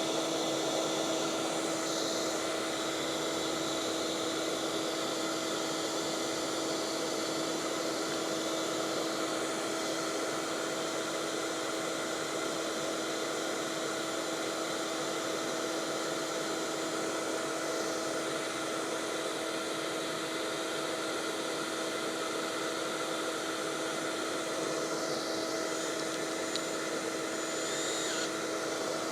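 Shop vacuum running steadily, a constant rush of air with an even motor hum.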